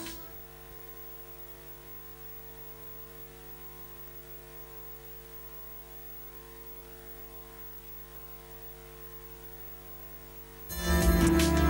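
Steady electrical mains hum with faint hiss, a few fixed low tones held without change. Guitar music cuts back in suddenly near the end.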